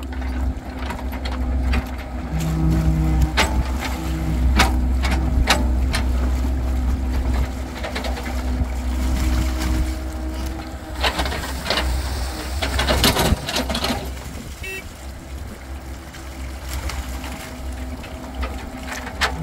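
Excavator's diesel engine running steadily with a hydraulic hum as the bucket digs wet, muddy soil for a drainage trench, with scattered knocks and scrapes from the bucket. The engine is louder under load in the first half and eases about two-thirds of the way through.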